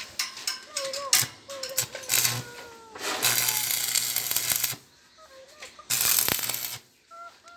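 Electric arc welding crackling and hissing in two bursts, a longer one about three seconds in and a shorter one near the end, with a low hum under the arc. Short animal calls that bend in pitch sound between the bursts.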